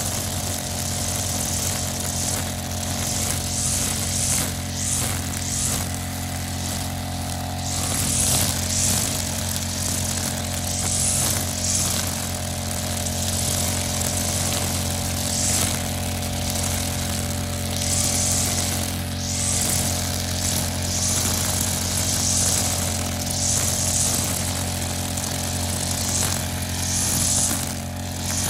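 Backpack brush cutter engine running steadily at cutting speed, with a swish every second or two as the cutting head sweeps through long grass.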